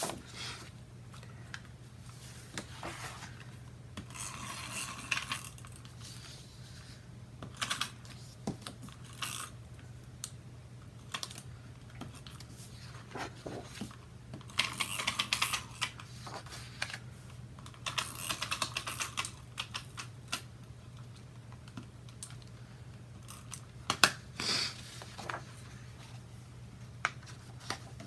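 Paper crafting at a table: sheets of scrapbook paper handled and laid down, with several rasping runs of adhesive laid along the paper, each lasting a second or two, among light clicks and taps.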